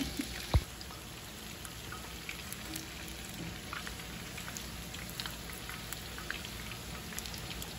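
Chicken pieces deep-frying in a pan of hot oil: a steady sizzle full of fine crackles. A single thump about half a second in.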